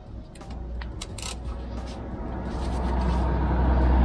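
Hand tools on a rear shock absorber's lower mounting bolt. There are a few sharp metallic clinks as a socket and ratchet are fitted, then a continuous ratcheting noise that grows louder over the last two seconds as the ratchet is worked to loosen the bolt.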